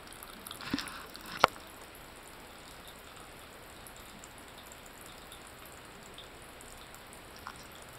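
Thin stream of tap water trickling into a ceramic bathroom sink. There is a soft knock and then a sharp knock in the first second and a half.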